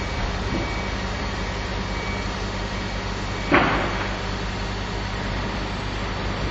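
Steady low mechanical hum at a fuel pump, with a brief hiss about three and a half seconds in.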